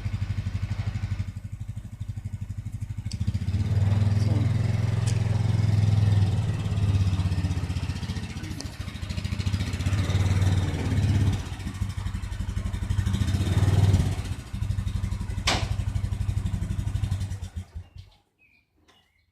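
A vehicle engine running with an even, rapid pulse, its level rising and falling a few times, then it stops near the end. A single sharp click comes about three-quarters of the way through.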